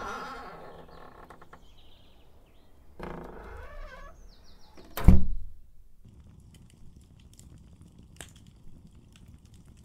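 A door creaking open, creaking again about three seconds later, then shutting with one loud thud about five seconds in.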